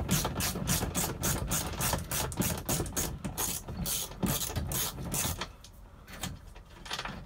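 Ratchet wrench clicking rapidly while a 13 mm bolt holding down the shift lever is backed out. The clicking stops about five seconds in.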